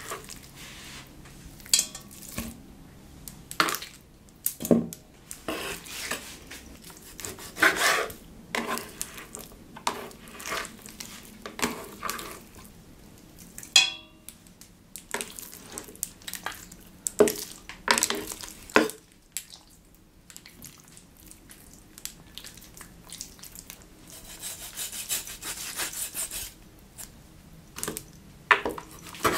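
Chef's knife cutting raw pork neck on a wooden chopping board: irregular knocks, scrapes and rubs of the blade and meat on the board. About halfway through, long fingernails tap a stainless steel pot, which rings briefly, and near the end there is a few seconds of steady scraping hiss.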